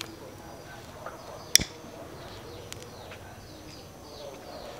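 A disposable lighter is struck with one sharp, loud click about a second and a half in, with a few fainter clicks around it. Birds chirp throughout with many short, falling chirps.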